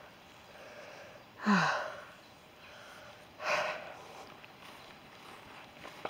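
A woman out of breath from walking, breathing out heavily twice about two seconds apart; the first breath is voiced and falls in pitch.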